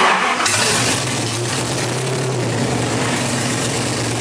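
Supercharged Hemi V8 in a 1940 Dodge pickup hot rod firing up with a loud burst and settling within about half a second into a steady, loud idle through its open headers.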